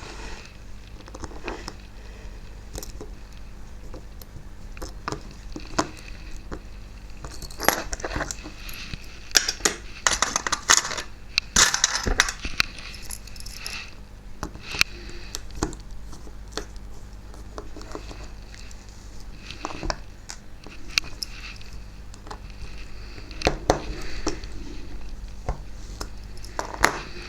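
Small clicks, taps and scrapes of tools against the tiny plastic and metal parts of an OO model locomotive being taken apart, busiest around ten seconds in, over a steady low hum.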